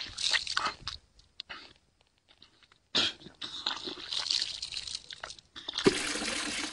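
A person vomiting: wet retching and splattering in ragged bursts. A near-silent gap of about two seconds falls in the middle, and a dense, louder gush comes near the end.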